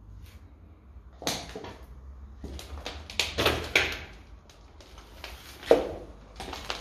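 Irregular footsteps crunching and scraping over rubble and broken debris on the floor, with a few sharper knocks; the loudest crunch comes about three-quarters of the way through.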